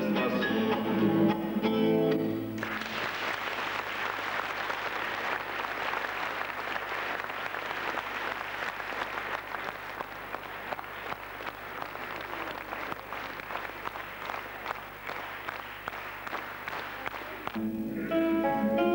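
Acoustic guitar music ends about two and a half seconds in, and a hall audience applauds steadily for about fifteen seconds. Near the end, plucked acoustic guitar notes start the next piece.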